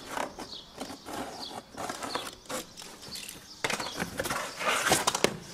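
Back of a knife scraping along cardboard to score a line, a run of short scratches that gets loudest and densest about three and a half seconds in.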